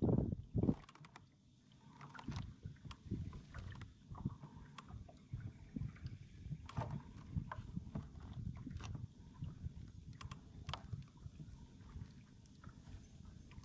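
Water lapping and slapping against a kayak's hull as it moves over the lake, with many small irregular knocks and clicks from the boat and a few louder knocks in the first second.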